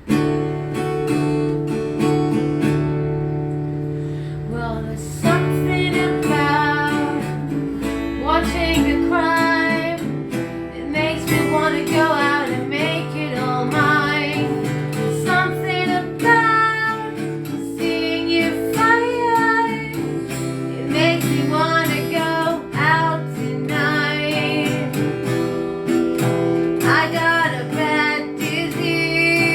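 Acoustic guitar strumming a folk song's intro. About five seconds in, a melody line that bends in pitch comes in over it.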